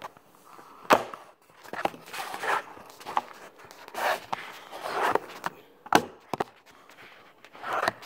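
Handling noise from the phone recording the video as it is carried and set down: several sharp knocks and short rustling swishes.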